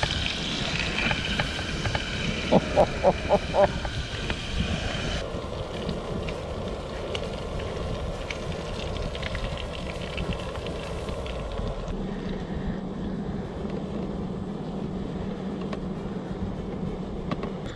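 Breaded perch fillets frying in oil in a small pan on a gas camp stove, a steady sizzling hiss, with wind on the microphone. About three seconds in comes a run of five short pitched notes, about three a second. From about twelve seconds in a steady low hum joins.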